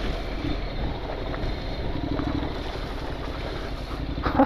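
Honda 750X motorcycle's parallel-twin engine running steadily while riding, with wind buffeting the microphone.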